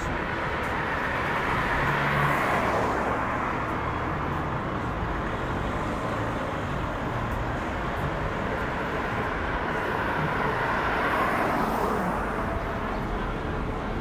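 City street traffic: a steady hum of cars on the road, swelling twice, about two seconds in and again near eleven seconds, as cars pass close by with their tyre and engine noise rising and fading.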